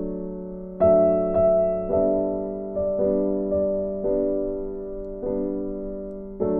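Background music: soft piano notes and chords struck every half second to a second, each left to ring and fade.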